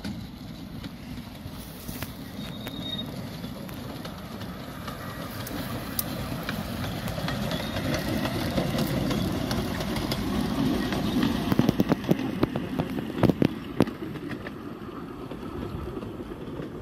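Severn Lamb 15-inch gauge steam locomotive No. 3 Dougal running past on the track. Its sound grows as it approaches and fades as it draws away, with a run of sharp clicks about twelve to thirteen seconds in.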